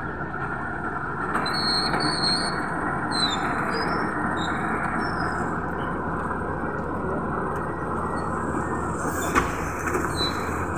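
Steady rumble of a crane tow truck at work, with short high-pitched metal squeals as an overturned dump truck loaded with blocks is winched back onto its wheels. The squeals come a couple of seconds in and again near the end, and a single sharp knock comes near the end.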